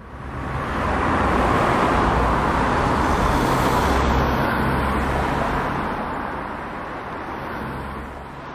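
A steady rushing noise with a low rumble beneath it, coming in at the start and slowly easing off in the second half.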